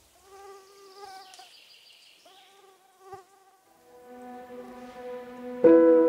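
A flying insect buzzing past twice with a wavering whine, the pitch wobbling as it moves. Then soft ambient music fades in and swells near the end.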